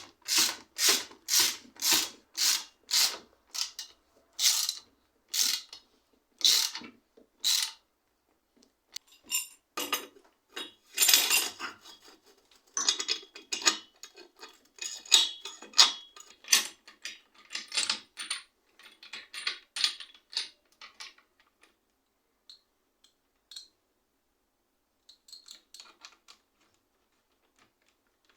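Bicycle repair work on metal parts. First come a dozen or so evenly spaced rasping strokes, about two a second; then irregular clicks, taps and scrapes of parts and tools that thin out to a few faint ticks in the last few seconds.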